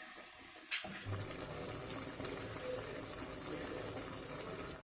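Pav bhaji mixture of mashed vegetables, masala and added water heating in an open pressure cooker toward the boil: a soft, steady hiss, with one sharp click about three-quarters of a second in.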